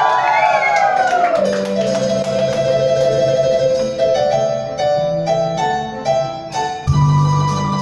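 Live band playing an instrumental intro: a few gliding pitch sweeps, then a melody of held notes, and about seven seconds in the bass and a sustained chord come in fuller.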